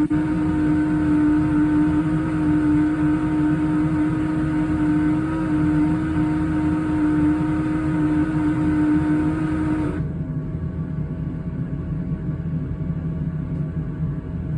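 Toshiba TW117A7L drum washer-dryer in its drying cycle making a loud abnormal noise, a steady hum with a strong tone, from a faulty drain pump. About ten seconds in the hum cuts off suddenly, leaving a quieter low rumble of the machine running.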